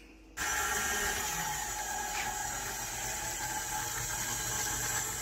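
KitchenAid tilt-head stand mixer switched on about half a second in. Its motor runs steadily as the wire whisk beats butter and sugar in the steel bowl.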